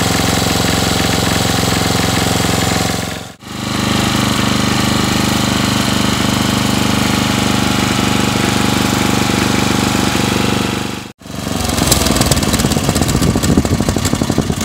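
10hp Briggs & Stratton single-cylinder engine on a riding mower running steadily while its freshly replaced carburetor's main jet is being adjusted to smooth out an occasional miss. The sound cuts out briefly twice, and after the second break it is rougher and noisier.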